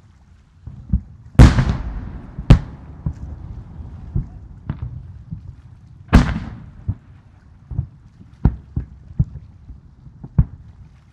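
Aerial firework shells bursting in the sky. Two heavy booms, about 1.5 s in and about 6 s in, each trail off in a long rolling rumble, and a dozen sharper, smaller bangs are scattered between them.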